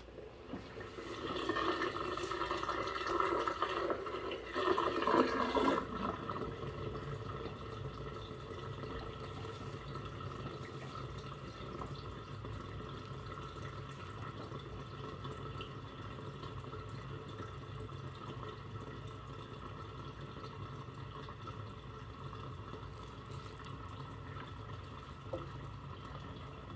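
Soapy water draining out of a stainless steel sink: a steady rush of water down the drain. It is louder and busier for the first five seconds or so.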